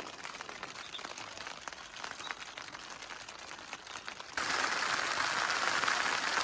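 Rain falling, a light even hiss with many small drops ticking. A little over four seconds in, the sound cuts abruptly to a louder, steady rushing hiss.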